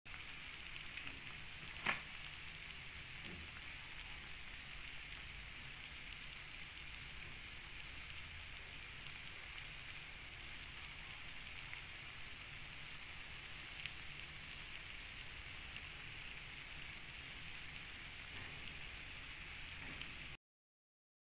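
Half cakes deep-frying in hot oil in a pan: a steady sizzling hiss, with one sharp click about two seconds in and a couple of faint ticks later. The sound cuts off suddenly just before the end.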